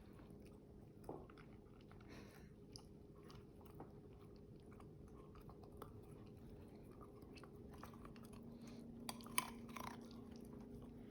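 A dog chewing a raw carrot: faint, irregular crunches, with a few louder bites near the end.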